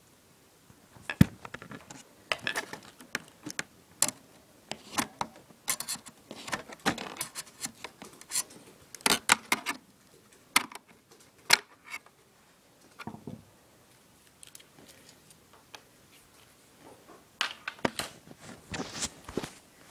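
Irregular clicks, knocks and scrapes of an HP OmniBook laptop's plastic casing and parts being handled and taken apart, in quick clusters that stop for a few seconds and start again near the end.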